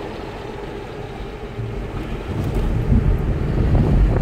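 Road and wind noise from a moving car: a steady low rumble that grows louder a little past halfway through.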